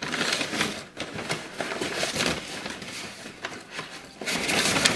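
Thick packing paper crinkling and rustling as it is pulled and unfolded from around a potted plant, in irregular crackles, loudest just before the end.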